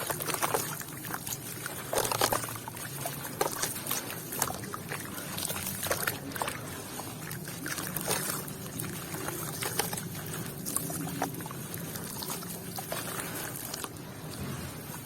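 Wet sand and red dirt crumbling and dissolving in water: soft trickling and pouring, with many small clicks and crackles from little stones.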